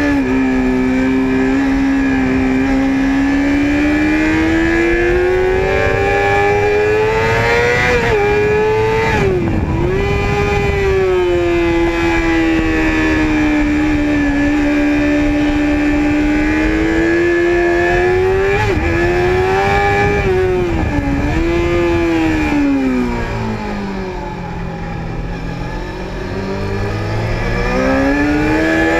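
Sport motorcycle engine heard from onboard at speed, with wind rush. The pitch climbs under throttle, dips sharply at quick gear shifts about nine and twenty-one seconds in, and falls and quietens as the rider backs off in the low twenties, then climbs again near the end.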